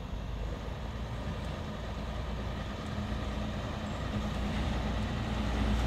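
Diesel multiple unit approaching on the line, its engine a steady low drone that grows gradually louder as it nears.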